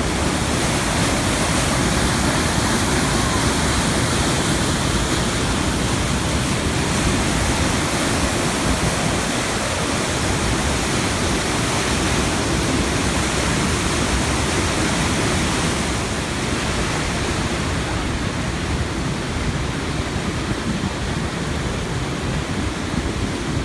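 Waterfall rushing: a steady, loud roar of falling river water.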